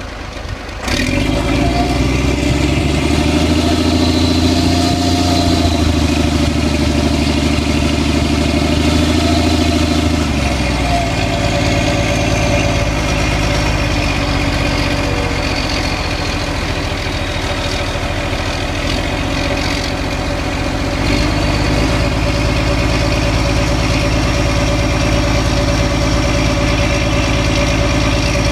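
Saurer 10DM truck's D4KT-M six-cylinder turbodiesel running, heard at the exhaust pipe, with the turbocharger's high whistle over it. About ten seconds in the engine note drops and the turbo whistle slowly falls; after about twenty seconds the engine picks up a little and the whistle climbs again.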